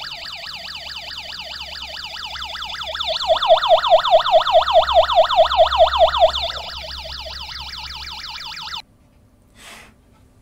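Small 8-ohm 0.5-watt loudspeaker playing a siren-like warble, about four rising sweeps a second, while held against a piece of card with a hole cut in it as a baffle. It grows louder and fuller about three seconds in, drops back about six and a half seconds in, and cuts off near the end.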